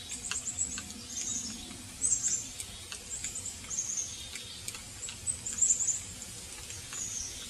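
First Need water purifier's hand pump being worked in steady strokes, giving a short high-pitched squeak with a faint click on each stroke, a little under one stroke a second, as it pumps river water through the filter into a bottle.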